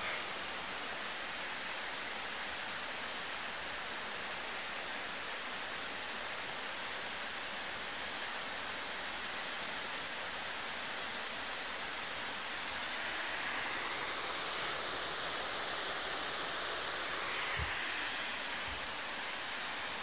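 Steady rushing hiss of Zengoro Falls, a waterfall heard from far off across a wooded gorge.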